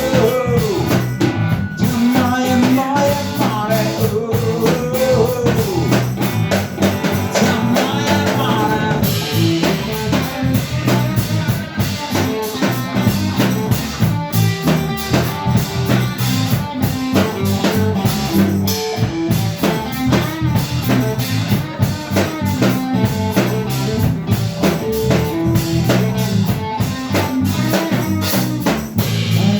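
Instrumental break of a rock-style song: drum kit and guitar playing a steady beat, with a pitched lead line gliding up and down in the first few seconds.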